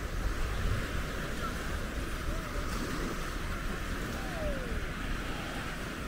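Surf washing onto a beach in a steady, unbroken wash, with wind rumbling on the microphone.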